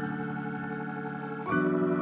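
Background music of held chords, moving to a new, louder chord about one and a half seconds in.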